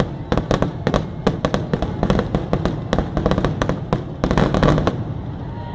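Aerial fireworks going off in quick succession: a dense string of sharp bangs and crackles, several a second, that thins out near the end.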